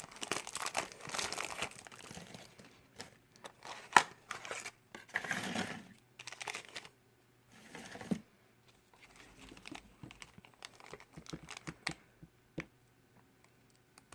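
Plastic blind-bag packaging crinkling and tearing as it is unwrapped by hand, in irregular bursts with a few sharp clicks and short pauses.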